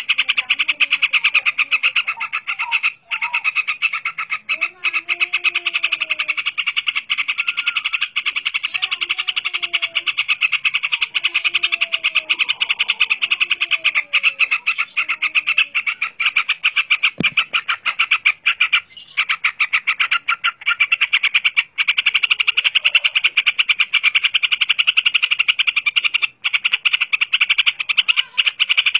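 Caged yellow-vented bulbul (trucukan) singing over a dense, fast rattling pulse that runs throughout.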